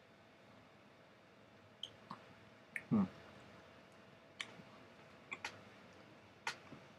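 Eating sounds: a plastic fork clicking against a small foam cup of beans while a bite is scooped and eaten. There are scattered small clicks, with a louder, lower knock about three seconds in.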